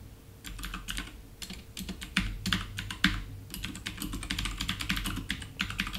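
Computer keyboard being typed in quick, uneven runs of key clicks, the keystrokes coming thicker from about halfway through.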